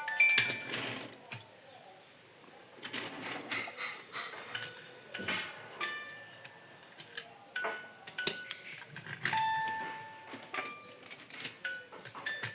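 Short electronic chime-like tones at several different pitches, some held for about half a second, mixed with scattered sharp clicks and rattles.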